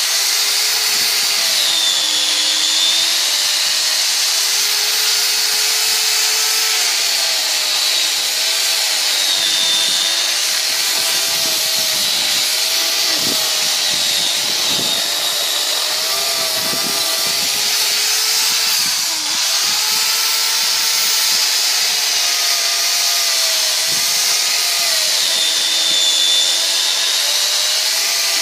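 INTERTOOL DT 2204 electric chainsaw running under load, its chain cutting through a log. The motor's pitch keeps dipping and recovering as the chain bites into the wood.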